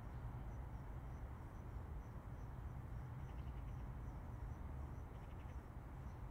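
Steady low rumble and hiss of distant highway traffic, with an insect chirping high and regularly, about three chirps a second. A couple of faint rapid ticking calls come through about three seconds in and again near five seconds.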